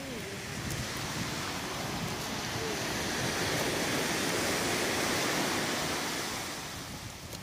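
Surf washing in at the shore: a steady rush of water that swells over a few seconds and eases off near the end.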